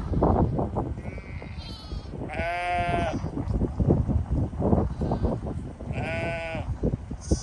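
Sheep bleating: two long, wavering bleats about two and a half and six seconds in, with shorter high-pitched calls around them, over a low rumble of wind on the microphone.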